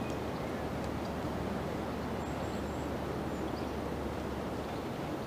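Steady outdoor wind noise on the microphone, with a few faint high bird chirps about two seconds in.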